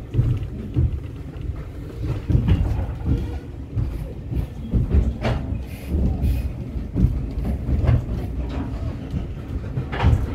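Heritage railway carriage running along the line, heard from inside the compartment: a steady low rumble of wheels on rails with irregular knocks and clunks from the track and coach body.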